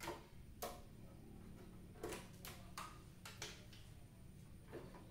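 Faint, scattered light clicks and knocks, about eight over the few seconds, as a CRT television's chassis board and wiring are handled, over a low steady hum.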